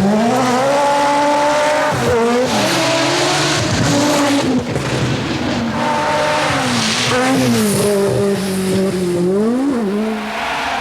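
Group B rally car engine driven hard, its pitch climbing and then dropping sharply several times at gear changes and lifts off the throttle. Stretches of rushing noise come through under the engine.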